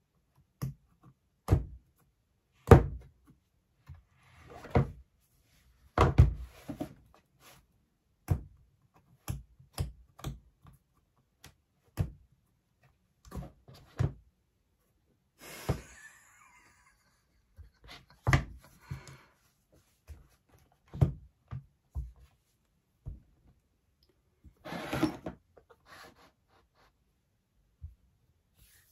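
Apple Magic Keyboard case and iPad Pro being handled on a wooden desk: a series of separate knocks and clacks as the case is opened and the iPad is lifted out and set down. There are brief rubbing, sliding sounds about halfway through and again near the end.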